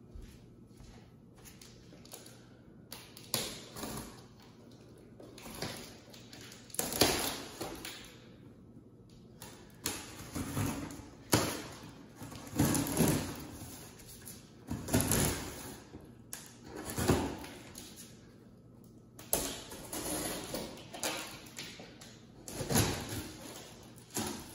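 Scissors cutting along the packing tape on a cardboard box, with the scraping and rustling of the cardboard flaps, in irregular bursts every second or two.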